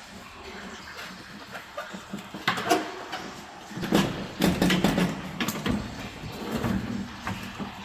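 Parts being handled inside a car door: irregular knocks, clicks and rattles, coming thicker about halfway through.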